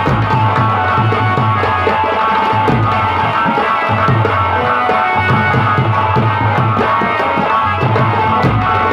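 Live folk-theatre band music: an electronic keyboard holding a melody over a steady beat on a rope-tensioned barrel hand drum (dholak).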